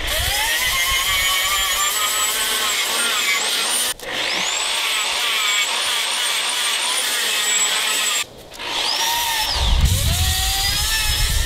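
Electric angle grinder with a sanding disc grinding cured epoxy and fiberglass on a boat transom, sanding back and bevelling the hole repairs. Its whine wavers in pitch with the load. It spins up at the start, dips and picks up again about four seconds in, then cuts out briefly near eight seconds and spins up again.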